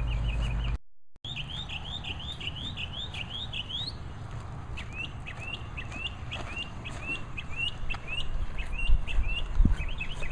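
A bird sings series of quick, repeated chirping notes, about four a second, over a low rumble. Near the end, footsteps crunch on gravel.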